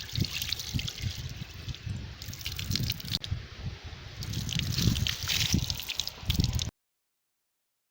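Water being poured and splashing and dripping over stone idols as they are washed, in irregular splashes, cutting off suddenly near the end.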